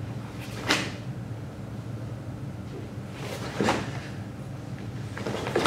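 Three short, sharp swishing snaps of a karate gi's cotton sleeves and jacket as kata techniques are thrown: the first about a second in, the next two near the middle and the end. A steady low hum of the room runs underneath.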